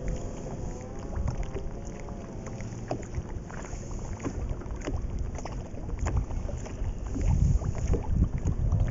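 Wind buffeting the microphone and lake water lapping against a boat, with small scattered clicks and splashes; the wind rumble grows louder near the end.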